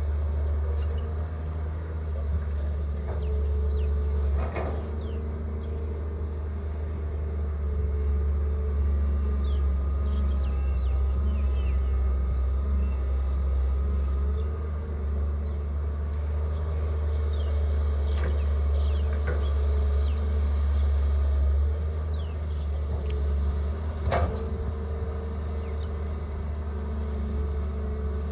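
Caterpillar hydraulic excavator's diesel engine running steadily with a low hum as it digs soil, with two sharp clanks, one a few seconds in and one near the end.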